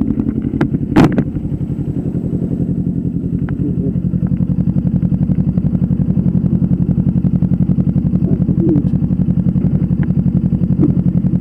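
Motorcycle engine idling steadily, with one sharp click about a second in.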